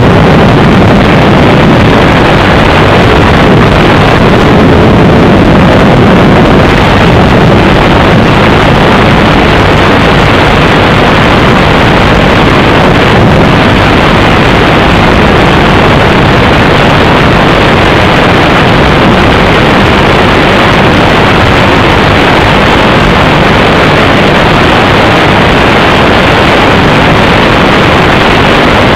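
Loud, steady static hiss from an analog FPV video link's audio channel, the sign of a lost or very weak signal from the plane.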